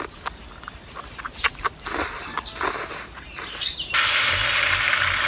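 Close mouth sounds of eating enoki mushrooms: short wet slurps and chewing smacks. About four seconds in, these give way to a sudden, louder, steady sizzle of red sauce hitting chopped garlic frying in oil in a metal wok.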